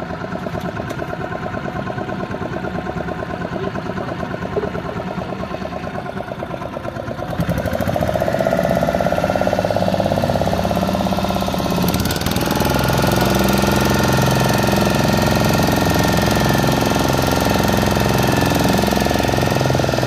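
Fishing boat's engine running steadily with a fast knocking pulse. It grows louder and higher in pitch about seven seconds in, as if throttled up.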